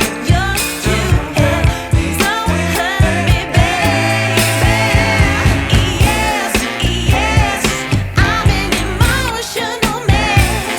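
Background pop song: a sung vocal line over a steady drum beat.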